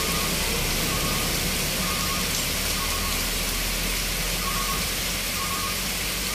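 Heavy rain pouring steadily, with the low drone of truck engines running underneath.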